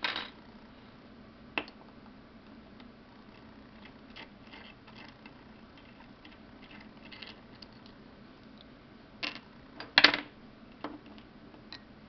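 Small metal clicks and light scraping as a screwdriver works at the front of a brass Schlage Everest key-in-knob lock cylinder during disassembly, with a few sharp clinks about nine and ten seconds in as small brass parts are set down on an aluminium pinning tray; the clinks near ten seconds are the loudest.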